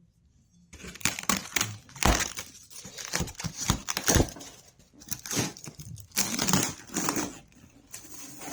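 Packaging being crinkled and torn by hand, starting about a second in as a string of irregular rustles and rips.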